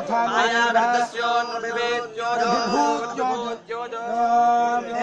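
Vedic shastra recitation at a Soma sacrifice: a man's voice chanting on long held, nearly level notes, with a short break about three and a half seconds in.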